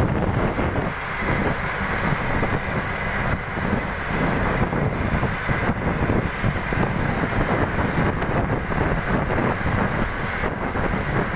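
Steady road and wind noise from a moving vehicle, with wind buffeting the microphone in an uneven, fluttering low rumble.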